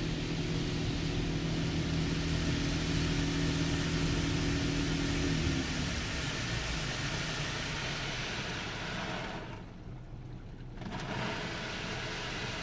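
Rinse water from a Kondor touchless car wash spraying over a minivan, heard from inside the vehicle as a steady hiss, with a low machine hum that stops about five seconds in. This is the medium-pressure rinse pass, not the high-pressure one. The spray falls away for a second or so near the end, then comes back.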